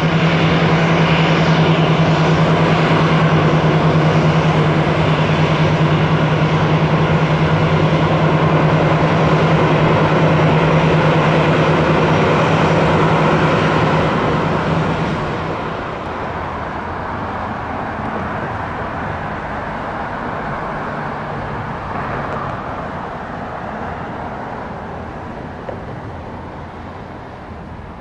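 Boeing 737-700 jet engines running loud and steady at close range, with a strong low hum under the jet noise. About halfway through the sound drops suddenly to a weaker jet rumble that slowly fades.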